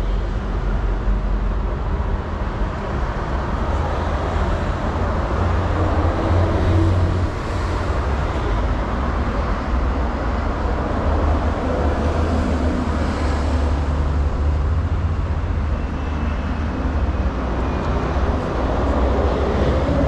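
Steady city street traffic noise: passing cars with a low rumble.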